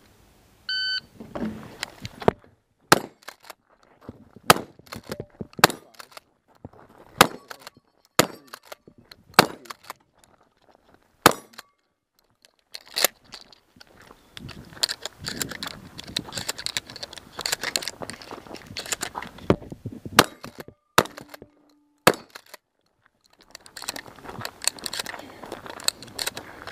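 A shot timer's start beep, then a Remington 870 Tactical pump-action shotgun firing a string of shots through a stage, roughly a second apart at first, with steel targets clanging and denser clatter between shots in the middle and near the end.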